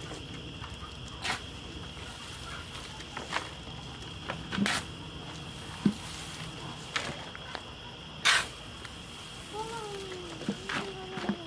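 Shovels scooping into a pile of wood chips and throwing them into a small cart: a scrape and rustling toss every second or two, the loudest about eight seconds in.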